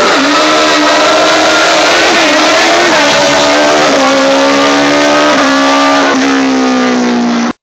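Race car engine running hard with a high, steady note that slowly falls in pitch as the car pulls away. The sound cuts off suddenly near the end.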